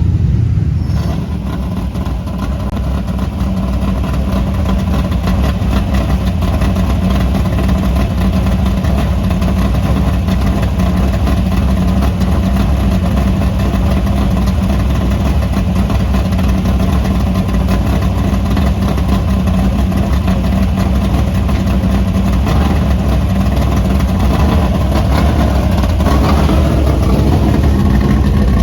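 Race car engines running in a loud, steady drone.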